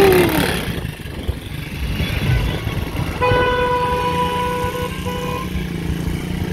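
Small ATV engine running, with a vehicle horn sounding about three seconds in, held for nearly two seconds, then a short second toot.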